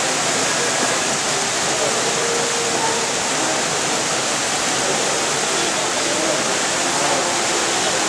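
Small rock waterfall pouring steadily over stone ledges into a shallow pool: a constant, even rush of falling water.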